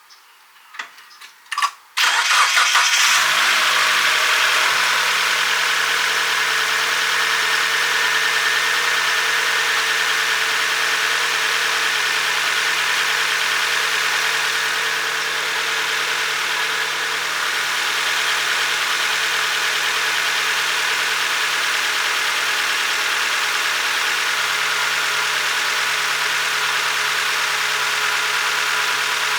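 NB Mazda Miata four-cylinder engine: a few short clicks, then it starts about two seconds in, its revs settling within a few seconds into a steady idle on freshly changed oil.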